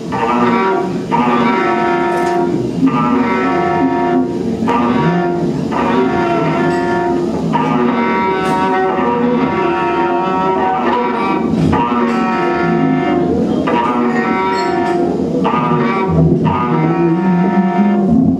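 Live experimental electronic music played on tabletop electronics and effects units: a dense, loud pitched drone that breaks off and restarts in chunks every one and a half to two seconds, like a stuttering loop.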